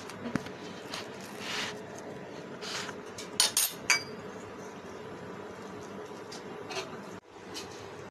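Kitchen utensils clinking and scraping: a steel kebab press being handled over a plastic tray of mince, with a cluster of sharp metal clinks about three and a half seconds in, over a faint steady hum.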